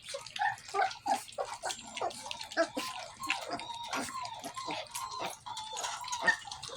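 Puppies eating wet food from a pan: quick wet lapping and smacking clicks throughout, with small high whines from the pups around the middle.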